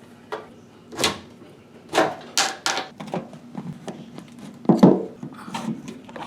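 Irregular clicks, knocks and rattles of tools and parts being handled while a washing machine is taken apart, the loudest knock about five seconds in.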